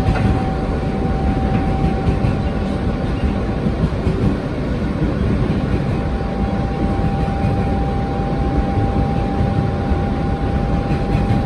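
G train subway car running at speed, heard from inside the car: a steady rumble of wheels on the rails. A thin steady high tone fades away about a second in and comes back about six seconds in.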